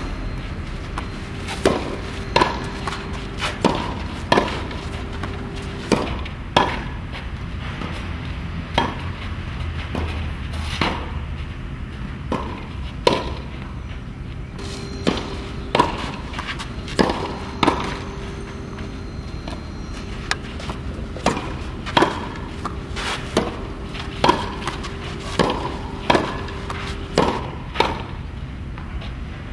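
Tennis ball being hit back and forth in a rally: sharp pocks of the racket strings striking the ball, together with the ball bouncing on the clay court, about one every second.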